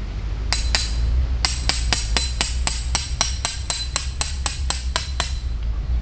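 Tent peg being hammered into the ground: two strikes, then a quick, even run of about five ringing blows a second that stops near the end.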